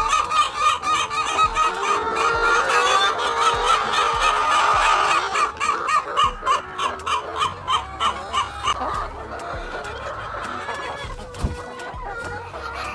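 A flock of layer chickens clucking and calling, many short repeated calls overlapping into a dense chatter that thins out and grows quieter toward the end.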